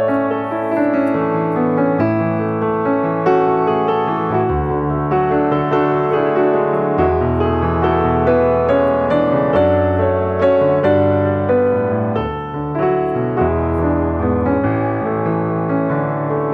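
Background instrumental music led by piano, steady sustained chords and melody notes.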